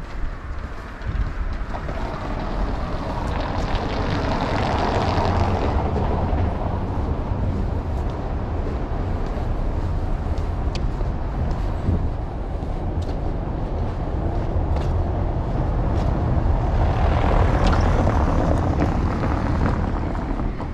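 Loud, steady rumble of passing vehicles. It swells twice, a few seconds in and again near the end, as something louder goes by.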